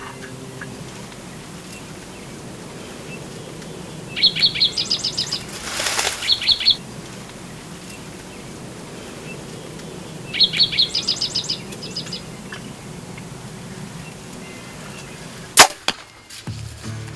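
Two bursts of rapid, high-pitched bird calls, then near the end one loud sharp crack of a bow being shot, with a smaller knock just after.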